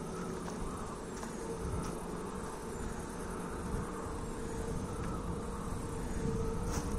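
Wind turbine running: a steady hum from the nacelle, with a regular swell a little under once a second as the blades sweep round.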